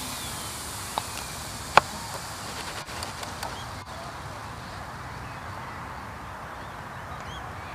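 A radio-controlled helicopter's electric motor and rotor spinning down after throttle cut, a faint whine falling in pitch over the first second or so. A sharp click follows about two seconds in. Then a steady outdoor hiss with a few small clicks and faint bird calls near the end.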